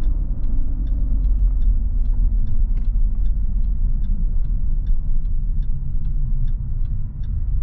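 Steady low rumble of an RV driving on the highway, with faint, regular light ticks about three times a second.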